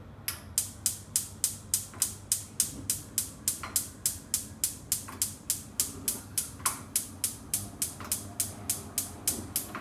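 Hoover gas oven's spark igniter clicking rapidly and evenly, about four clicks a second, as the ignition is held to light the burner.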